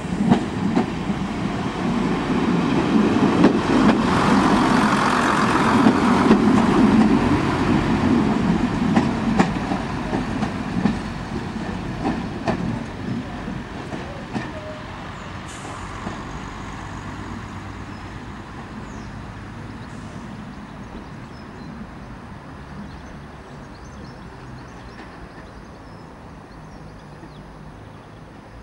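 Class 121 'bubble car' single-car diesel railcar pulling away, its diesel engines loudest in the first ten seconds or so. Its wheels click over rail joints as it goes, and the sound fades steadily as the railcar draws away.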